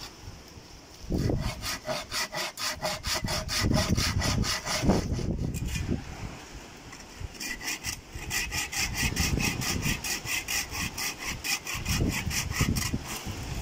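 Rapid rhythmic rasping strokes, about five a second, in two long runs with a short break near the middle.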